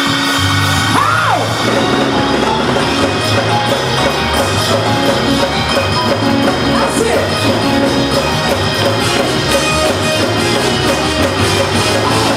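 Gospel praise-break music: a Korg keyboard and drums playing a steady driving groove, with the congregation shouting and whooping over it. One voice gives a rising-and-falling yell about a second in.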